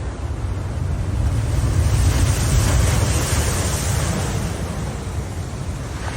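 Rough sea surf breaking on a beach: a continuous wash of waves with a heavy low rumble, swelling a couple of seconds in and easing a little near the end.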